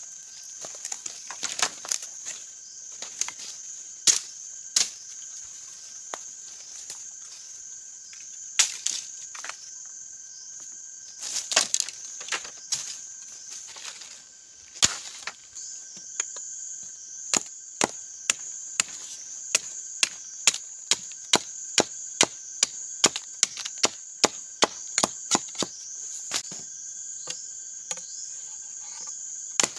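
Machete chopping small wooden sticks: scattered cuts at first, then a steady run of sharp chops about one and a half a second from around halfway. Insects drone steadily and high-pitched behind it.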